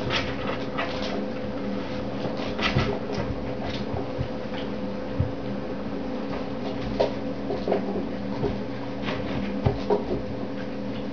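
Puppies scuffling and wrestling on a mattress: bedding rustling with scattered light scrapes and a few sharper knocks, over a steady low hum.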